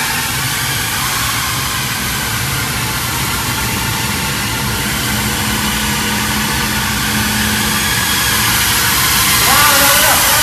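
FPV racing quadcopter's electric motors and propellers whining through a steady rush of noise, the pitch swinging up and back down near the end with the throttle.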